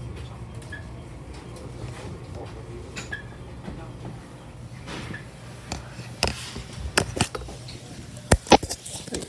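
Low steady hum of a JR 227 series electric train creeping along a platform, then from about five seconds in a run of sharp clicks and knocks as the camera phone is handled and taken down, the two loudest near the end.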